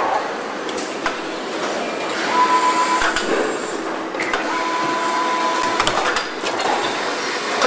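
Car assembly line noise: a steady machinery din with scattered metallic clicks and knocks, and a thin high tone that sounds twice, briefly about two seconds in and again for about a second and a half midway.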